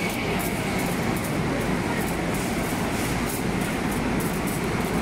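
Wire shopping cart rolling over a tiled floor: a steady rumble from the wheels with faint repeated clicks and rattles.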